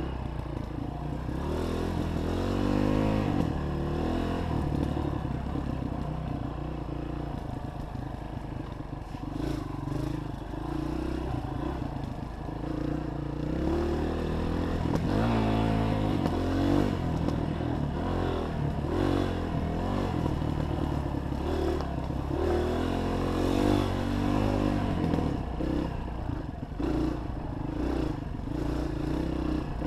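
Honda 230 dirt bike's single-cylinder four-stroke engine heard on board while riding a dirt trail, its pitch rising and falling again and again as the rider works the throttle and gears.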